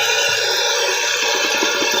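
Wet shaving brush swirling and whipping a shaving soap lather: a steady, dense, crackly swishing of many quick strokes. The brush is a 33 mm comfort-knot brush working hard Soap Commander soap with added water, building the lather toward stiff peaks.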